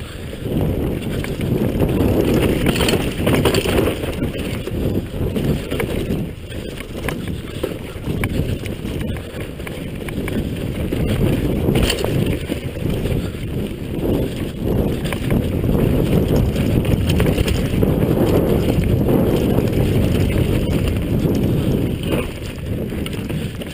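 Downhill mountain bike descending a dirt trail at speed: heavy wind rumble on the camera microphone over tyre noise on dirt, with occasional sharp knocks from the bike over bumps.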